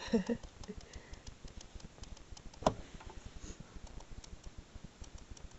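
Faint, quick ticking, with one sharper knock about two and a half seconds in.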